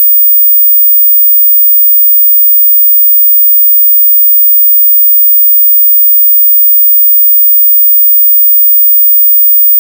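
A loud, steady 15,000 Hz sine-wave test tone: a single very high-pitched whistle held unchanged throughout.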